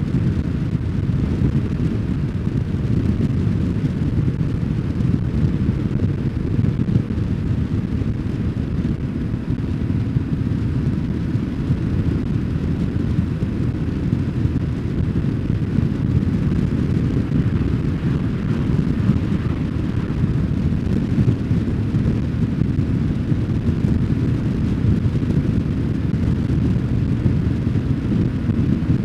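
BMW R1150GS boxer-twin motorcycle on the move: a steady low drone of engine and wind buffeting the microphone, with no change in pace.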